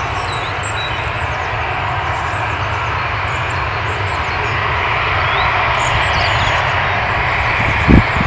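Boeing 747-400 Freighter's four jet engines running as the aircraft rolls along the runway, a steady rumble and hiss that grows slightly louder from about the middle. Near the end come a couple of sharp low thumps.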